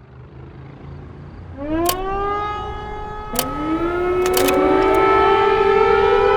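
Air raid sirens winding up one after another, each rising in pitch and then holding a steady wail, until several tones overlap, over a low rumble. Sharp clicks come at about two, three and a half, and four and a half seconds in.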